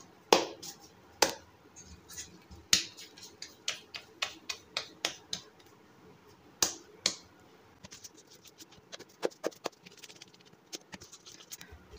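Hands pinching off soft dough in a metal bowl and patting it into balls: a run of irregular sharp slaps and clicks, with a quicker patter of small ones near the end.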